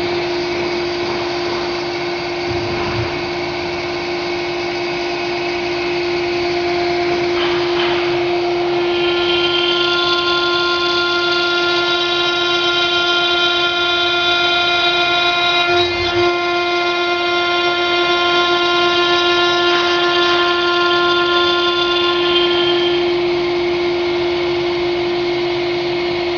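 Stone-engraving CNC router's spindle running with a steady high whine as it engraves stone. A set of higher overtones joins about nine seconds in and falls away a few seconds before the end.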